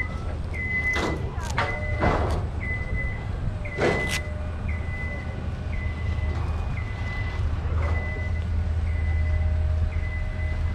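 A vehicle's reversing alarm beeps about once a second, each beep a short rising chirp into a steady high tone. Underneath runs the low, steady sound of the KTM 790 Duke's parallel-twin engine at low speed. There are brief rushing noises around a second in and again about four seconds in.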